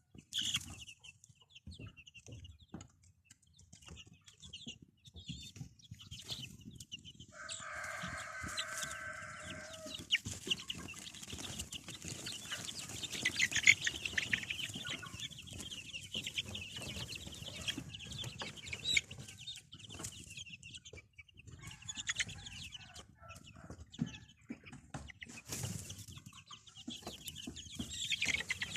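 Domestic chickens clucking, with many short high calls and scattered clicks. About a quarter of the way in, one long, steady call lasts about two and a half seconds.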